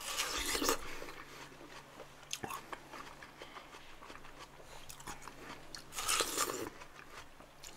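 A person biting into and chewing slices of watermelon: one bite right at the start, quieter chewing with small clicks, then a second bite about six seconds in.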